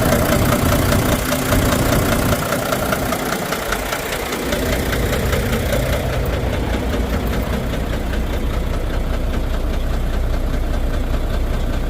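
Volvo D13 inline-six diesel engine idling with a knock, misfiring from a damaged fuel injector.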